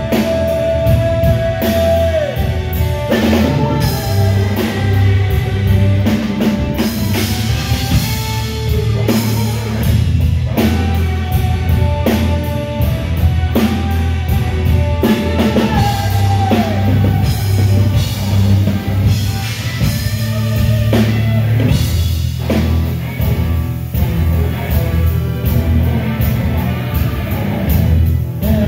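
Live rock band playing loudly, with drum kit and guitar under a male lead singer singing through the PA. A long held note ends about two seconds in.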